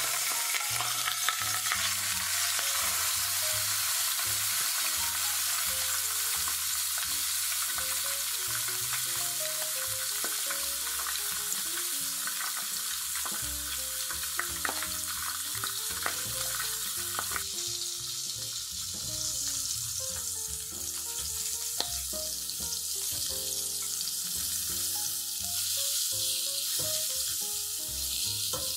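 White fish fillets frying skin-side down in hot olive oil in a nonstick frying pan: a steady, dense sizzle that eases a little about halfway through, with a few light taps of tongs and a fork against the pan.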